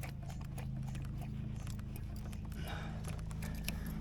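Starter motor cranking a Nissan RD28 straight-six diesel that does not fire, a steady low churning with irregular clicks. The engine won't catch; the owner believes there is air in the injector pump and lines.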